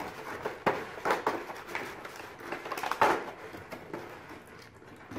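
Clear plastic clamshell tray of board-game miniatures being handled and opened: irregular crinkles and clicks of the plastic as tape is pulled off its side and the lid is lifted, quieter near the end.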